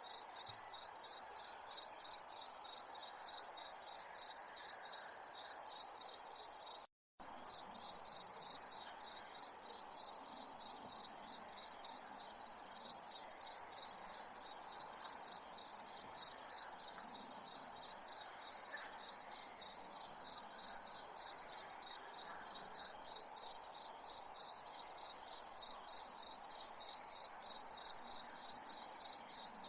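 Crickets chirping: a steady, high-pitched chirp pulsing about two to three times a second, with a brief cut to silence about seven seconds in.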